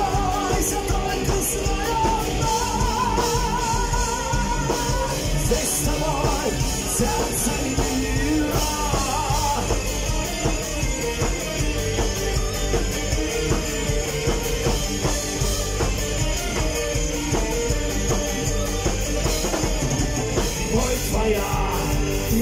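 Live rock band playing steadily: drum kit, bass guitar and electric guitars. A held, wavering lead melody sounds over the band in the first few seconds.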